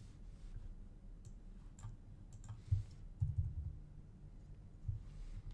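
A few faint, scattered clicks from a computer keyboard, with soft low thumps, including a short cluster about three seconds in.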